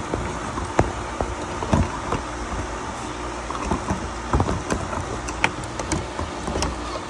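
A cap frame being worked off a multi-needle embroidery machine's cap driver by hand: scattered clicks and knocks of plastic and metal over a steady low hum.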